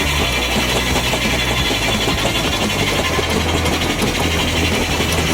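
Saw mill machinery running steadily, belt-driven by a Ruston & Hornsby steam traction engine, with a constant low hum under an even mechanical rattle.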